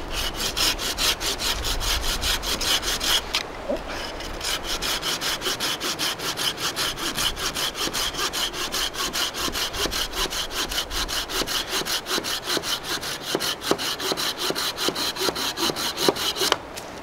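Bahco Laplander folding saw cutting through a green log in quick, even push-pull strokes, with a brief pause about three and a half seconds in; the sawing stops abruptly shortly before the end as the cut is finished.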